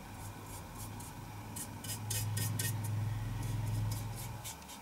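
Small brush rubbing over a painted steel helmet and its decal in a series of short, quick strokes. A low steady hum comes in about two seconds in and fades just before the end.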